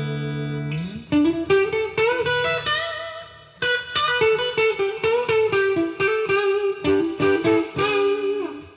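Ibanez RG350EX electric guitar, clean, through a Roland Blues Cube BC-60 amp with light reverb on the bridge-position single-coil setting. A held chord rings out, then a note slides up about a second in, followed by a quick single-note lead line with string bends that fades out near the end.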